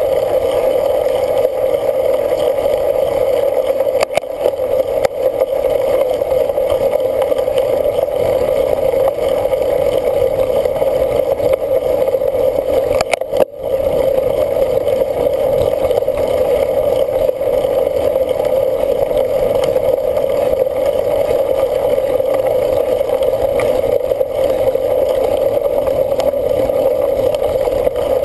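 Steady rush of wind and tyre noise on a camera riding along on a cyclocross bike at race pace, with a brief drop-out about halfway through.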